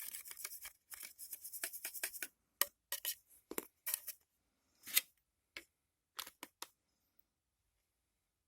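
Small plastic spoon scraping and tapping in a plastic cup of candy-kit mixture: quick, close-set strokes for about two seconds, then a dozen separate taps and scrapes that stop near the end.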